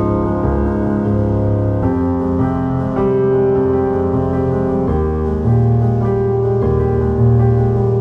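Background instrumental music, with held chords changing every second or two over a steady bass.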